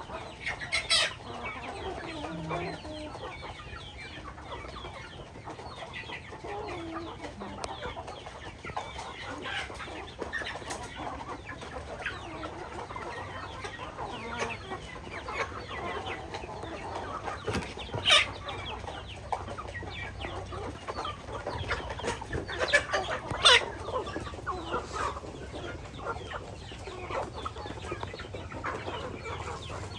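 Chickens clucking continually, with a few louder, sharper calls standing out.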